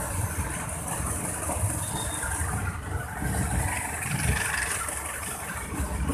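Passenger train running along the track, heard at an open carriage door: a steady, uneven rumble of wheels on rail with a hiss of rushing air over it.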